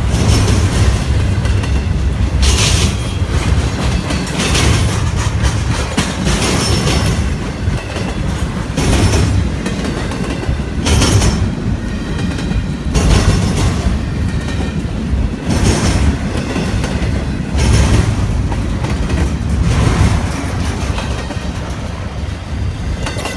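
Empty intermodal well cars of a freight train rolling past close by: a steady low rumble with a burst of wheel clatter about every two seconds as each car's wheels go by.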